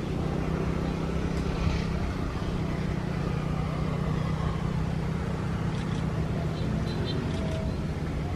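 Jet airliner engines running as a steady low drone, with wind buffeting the microphone.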